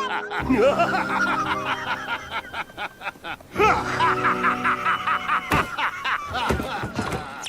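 A man's drawn-out, menacing cartoon laugh in rapid pulses, over dramatic background music.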